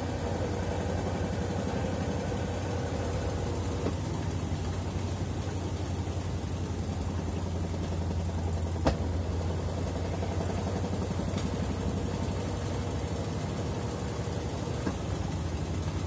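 Consul CWE13AB 13 kg top-load washing machine spinning its basket, running with a steady low hum and a faint steady whine. A single sharp click comes about nine seconds in.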